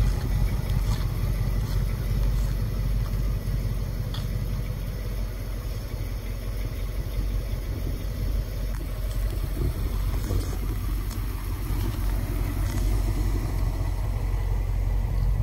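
1969 Chevrolet C10's 350 cubic-inch V8 idling steadily, a low, even rumble.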